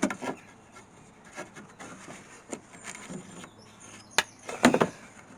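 A few sharp knocks and clatters, sounding like wooden parts being handled. There is one loud knock about four seconds in and a quick run of knocks just after it.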